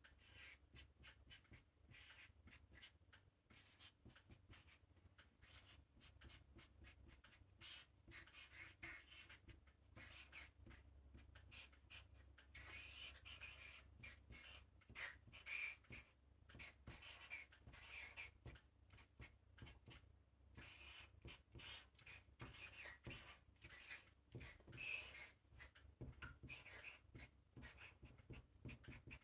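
Faint scratching of a marker pen's tip drawing on paper, in many short strokes with small ticks between them.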